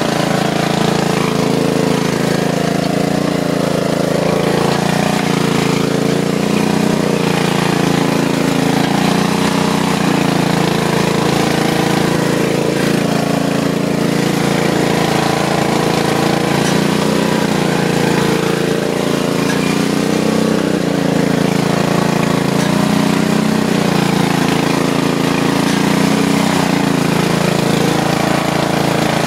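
Riding lawn mower's engine running without a break, its pitch rising and falling slightly as it works under load through mud.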